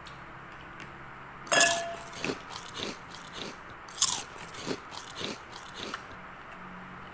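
Instant noodles being slurped and chewed: a loud slurp about one and a half seconds in and a louder one about four seconds in, with smaller chewing sounds between them.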